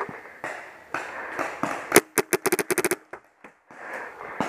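Paintball marker firing a rapid string of about eight shots in under a second, two seconds in, with one more single crack near the end.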